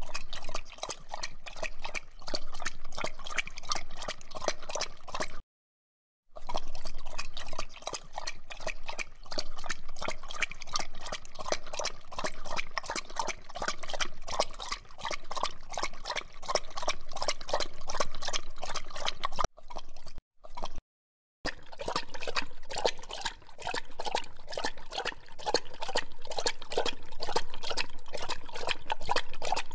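Dogs licking and lapping at ice pops and a cup: a fast, continuous run of wet smacking licks, broken by two short silences.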